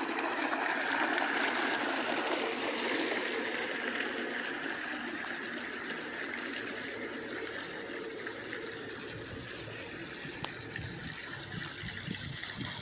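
Water trickling and splashing steadily, a continuous running-water sound.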